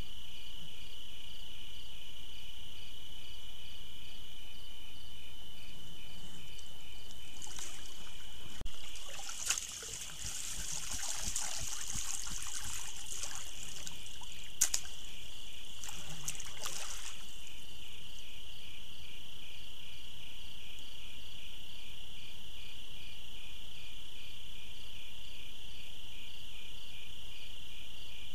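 Water sloshing and trickling as a black bear shifts about in a small muddy pool, for about ten seconds in the middle, with a single click near the end of the splashing. A steady pulsing cricket chorus runs underneath.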